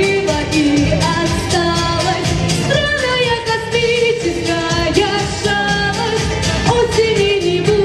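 Pop song: a sung melody over a backing track with a steady beat and bass.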